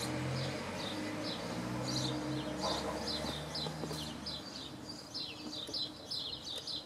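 Small birds chirping over and over in quick short notes. Under them a steady low hum stops about four seconds in.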